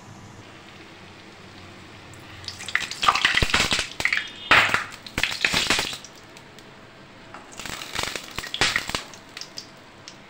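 Khaja pastries deep-frying in hot oil in an iron kadai: a low steady sizzle, broken by two spells of louder sizzling and scraping clatter as a steel ladle turns the pieces and lifts them out, now fried golden-brown.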